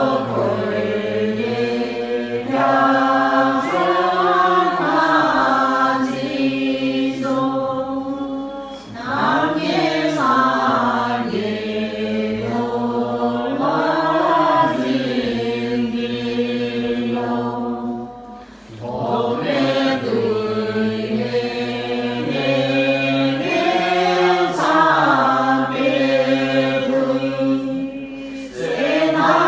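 A group of women chanting Buddhist prayers in unison from their prayer texts. The chanting is melodic, rising and falling in long phrases, with a brief pause for breath about every nine seconds.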